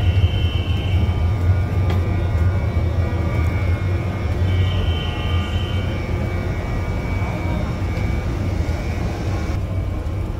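Steady low rumbling hum of railway-station machinery, heard from a moving escalator beside an electric train standing at the platform. A faint high whine sounds at the start and again for about a second and a half midway.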